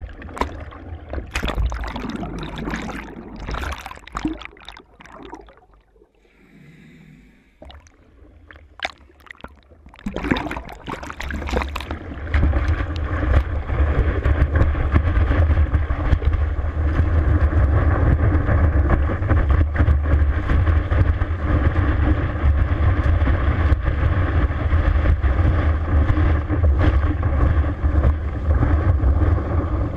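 Lake water splashing and churning around a board-mounted action camera as a wakesurfer is pulled up, in uneven bursts with a quieter stretch a few seconds in. From about twelve seconds in it becomes a steady, loud rush of wake water with a low rumble while the rider surfs the boat's wake.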